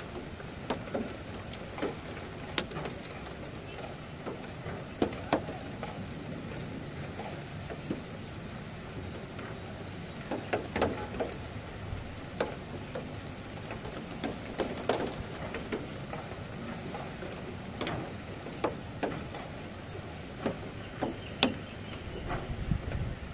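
Steady rain hiss with irregular sharp taps of drops striking a nearby surface. Near the end, low wind buffeting on the microphone comes in.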